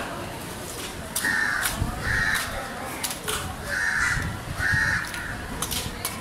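Crows cawing in doubles, two calls at a time, twice over. Several sharp knocks of a cleaver on a wooden chopping block are heard with them.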